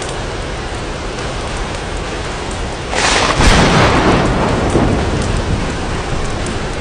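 Steady rain pattering on glass, with a clap of thunder about three seconds in that rumbles and fades away over the next couple of seconds.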